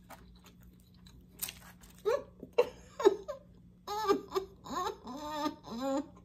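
A woman's wordless vocal sounds of delight: a series of short hummed and giggling bursts from about two seconds in, the kind made while enjoying a mouthful of food.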